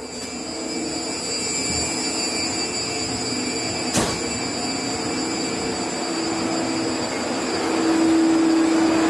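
Steady rush of shipboard machinery and ventilation with thin high-pitched whines. It grows louder over the first couple of seconds as the door opens. There is a single sharp click about four seconds in, and a low hum swells near the end.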